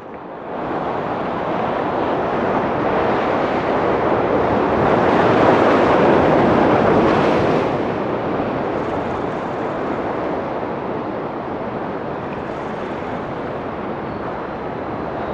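Sea surf washing against the rocks of a breakwater, with wind on the microphone; the wash swells to its loudest near the middle and then eases to a steady rush.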